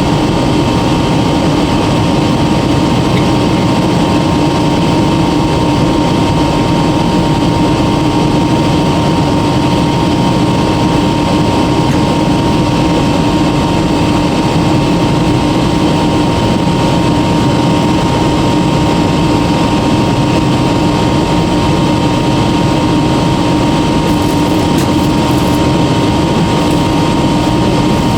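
Jet airliner cabin noise in flight: a steady roar of engines and rushing air, with a steady high whine above it.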